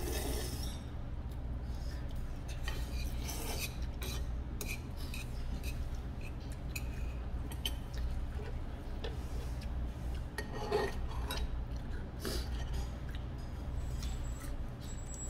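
Eating sounds over a steady low hum. Black-bean noodles are slurped at the very start, then chopsticks and a spoon click and scrape against a metal bowl now and then.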